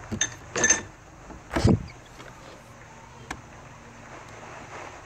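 Small objects on a desk clinking and knocking as they are handled and set down. There is a louder thud about a second and a half in, and a sharp click near the middle.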